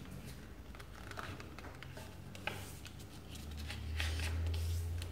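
Faint rustling and creasing of a sheet of paper being folded by hand, with a few soft clicks. A low hum rises from about three and a half seconds in.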